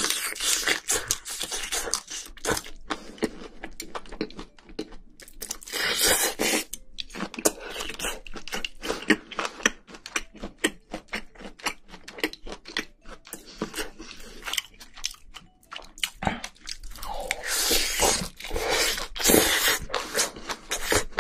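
Close-miked chewing and crunching of spicy braised seafood (haemul-jjim) with bean sprouts: rapid wet clicks and smacks, with a few longer slurps, one near 6 seconds and others near the end.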